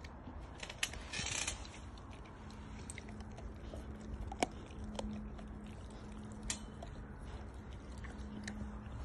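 Bull terrier biting and chewing a whole raw chicken, with scattered sharp crunching clicks and a brief rustling burst about a second in. A low steady hum runs underneath from about two and a half seconds in.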